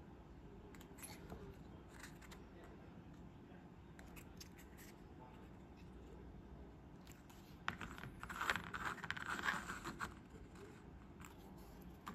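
Faint handling noise from small plastic model vehicles and their plastic stands being turned in the fingers, with light clicks and scrapes. It gets louder, with rubbing and clicking, about eight seconds in as the models are moved about on the cutting mat.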